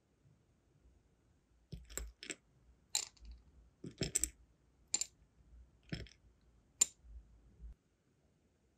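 Metal tweezers picking up small pieces of sealing wax from a glass dish: sharp, light clicks of wax and tweezer tips against glass and against each other, about one a second, some doubled.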